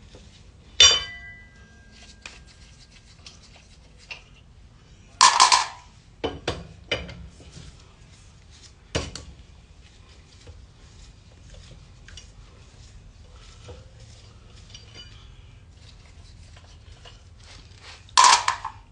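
Sharp metallic clinks and clanks from a four-way lug wrench and steel lug nuts: one about a second in that rings briefly, several close together around five to seven seconds in, another near nine seconds, and a loud clank near the end.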